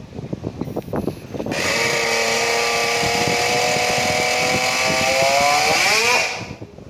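Small two-stroke nitro engine of a tethered racing model car, catching about a second and a half in and running with a loud, steady, high-pitched whine. Near the end its pitch rises and the sound drops away sharply.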